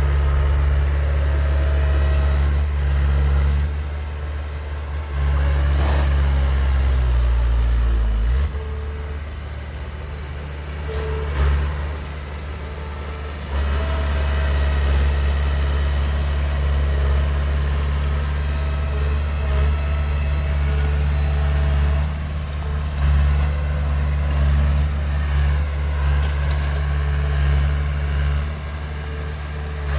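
Heavy diesel engines of a bulldozer and dump truck running hard. The engine pitch drops steeply about seven to eight seconds in, then settles back to a steady run. A few short sharp sounds stand out over the engine noise.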